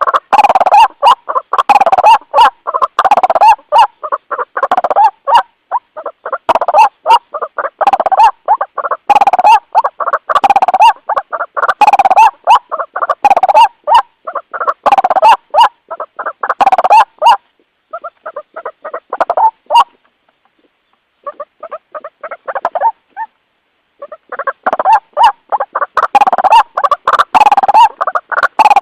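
White-breasted waterhen (ruak-ruak) calling loudly in a long run of rapidly repeated harsh notes. This is the lure call used to draw in other waterhens. The calls grow fainter and broken about two-thirds of the way through, pause briefly, and then return at full strength near the end.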